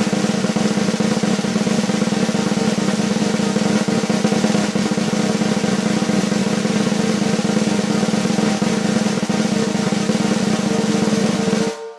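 A continuous drum roll, steady and even, that stops abruptly near the end and leaves a short ringing tail from the drum.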